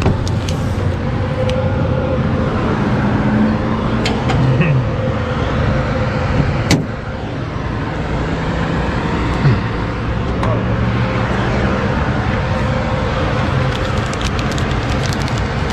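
Motor vehicle running: a steady engine and road rumble, with a few short sharp clicks about four, seven and nine and a half seconds in.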